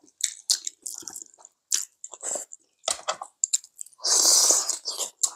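Close-up eating sounds of people chewing and sucking on spicy braised chicken feet: irregular wet smacks, bites and squishes, with one louder, longer sucking slurp lasting under a second about four seconds in.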